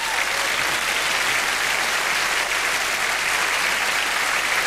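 Large studio audience applauding steadily, a dense wash of many hands clapping.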